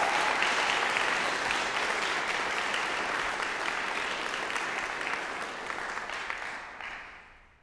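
Audience applauding, dying away over the last second or so.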